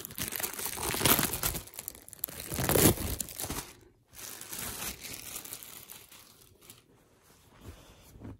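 Clear plastic polybag crinkling and rustling as it is handled and a T-shirt is pulled out of it. It is loudest in the first four seconds, with two louder crackles about one and three seconds in, then settles into softer rustling.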